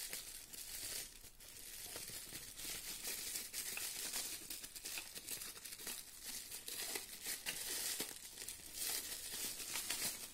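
Bubble wrap crinkling and crackling continuously as it is handled and pulled open by hand around plastic wheel center caps.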